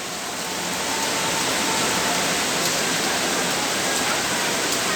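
Rain falling steadily, an even hiss that stays level throughout.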